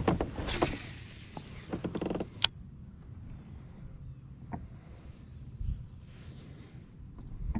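Handling of a baitcasting rod and reel in a plastic fishing kayak: a few scattered clicks and knocks, the sharpest about two and a half seconds in, over a steady high-pitched drone of insects.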